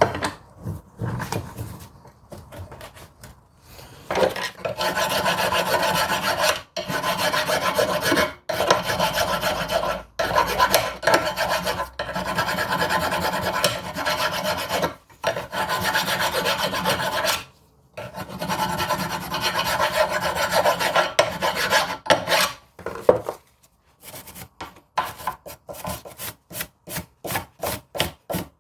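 Hand tool scraping back and forth on a steel brake caliper bracket, cleaning rust off the pad contact areas, in long runs with a few short breaks. Near the end the strokes turn quicker and shorter, about three to four a second.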